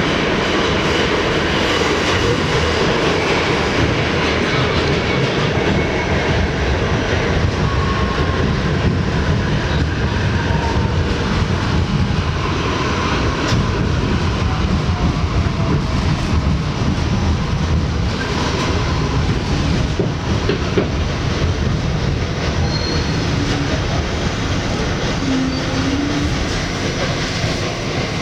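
R68 subway train running between stations: steady rumble of steel wheels on rail with clickety-clack over the rail joints and a few faint, brief wheel-squeal tones.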